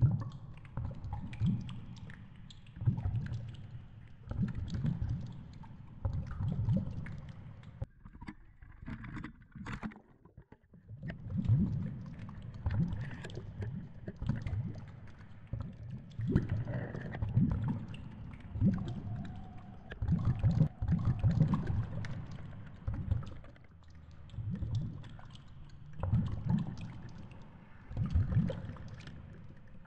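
Underwater sound from a GoPro in its housing on a sinking and swaying tenya fishing rig. Water rumbles against the housing in irregular low surges every second or two, with small clicks and knocks throughout. It goes quieter for a moment about nine to ten seconds in.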